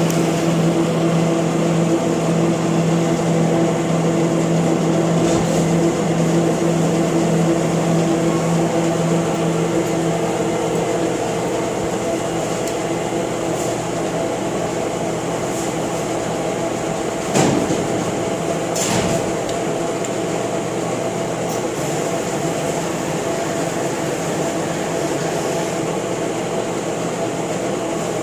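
LeBlond Regal engine lathe running, a steady mechanical hum with several steady tones from its geared headstock. The strongest low tone drops away partway through, and there is a sharp clunk about two-thirds of the way in, followed by a smaller one.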